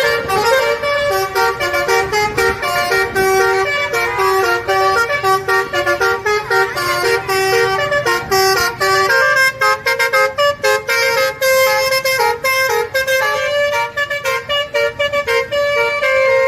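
Bus 'telolet' multi-tone horn playing a fast melody, its pitched notes stepping up and down in quick succession.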